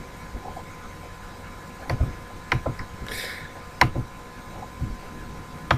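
Scattered sharp clicks of a computer mouse and keyboard, about six or seven of them, mostly in the second half, over a faint steady electrical hum. There is a brief soft hiss a little after the middle.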